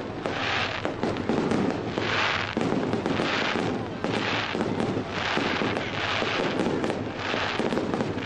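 Fireworks going off: a dense run of bangs and crackles, with swells of crackling hiss about once a second.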